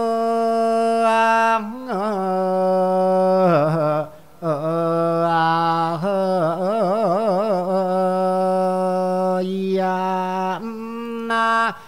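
A Thai Buddhist monk singing a thet lae, the melodic sung sermon: one male voice drawing out long held notes with wavering ornaments, in several phrases with a breath about four seconds in.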